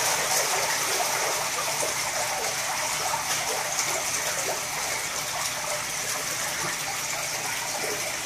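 Steady rush and splash of water churned at the surface of a half-full reef tank by its return outlets as the water circulates.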